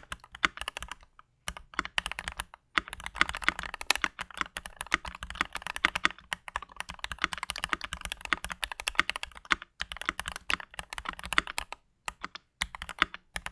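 Typing on a Keychron V1 mechanical keyboard fitted with Gateron North Pole linear switches and GMK keycaps: a fast, steady run of key clicks, broken by a few short pauses.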